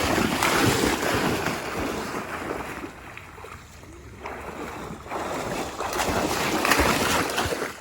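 Water splashing and sloshing in uneven surges as something moves through shallow floodwater, loudest at the start and again near the end, with wind on the microphone.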